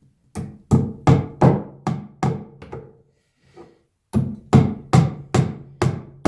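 Hammer driving electrical staples over PEX water tubing into wood framing: two runs of sharp, evenly spaced blows, about seven and then six, roughly two and a half a second, with a short pause between them.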